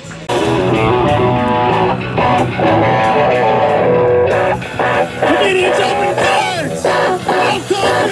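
A rock band playing, electric guitars over drums, cutting in suddenly just after the start.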